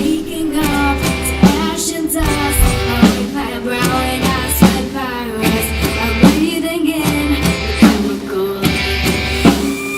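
Live rock band playing: drum kit, electric guitar and bass, with a voice singing over them. A heavy drum hit lands about every second and a half.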